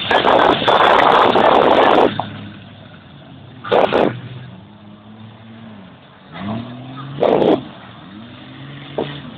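Autocross cars racing on a dirt track: loud, dense engine noise for the first two seconds as cars pass close by. Then engines rev repeatedly further off, their pitch rising as they accelerate, with a few short loud bursts.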